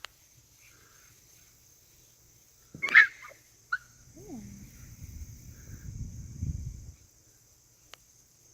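A puppy gives one sharp yelp about three seconds in, then a short falling whine and low rumbling growl-like noise for a couple of seconds, as puppies play. Crickets chirp steadily in the background.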